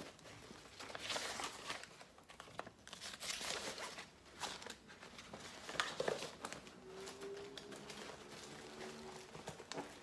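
Hands rummaging in a tote bag and handling paper and plastic, crinkling and rustling in irregular bursts.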